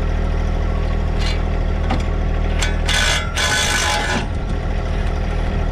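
Hand ratchet wrench on a socket extension working a bolt: a few single clicks, then a longer run of rapid clicking about three seconds in, over a steady low mechanical hum.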